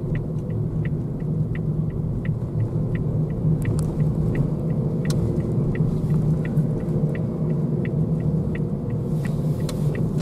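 Car cabin sound: steady low engine and road rumble, with the turn-signal indicator ticking evenly about three times a second while the car turns at an intersection.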